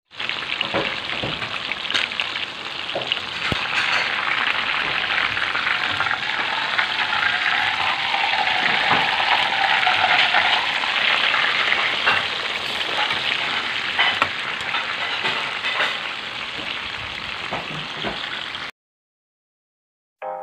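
Chicken frying in hot oil in a nonstick frying pan: a steady crackling sizzle with occasional sharp pops and spatters. It cuts off suddenly near the end.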